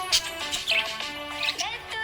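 Music: a melodic tune of held, pitched notes changing every fraction of a second, with a sliding line near the end.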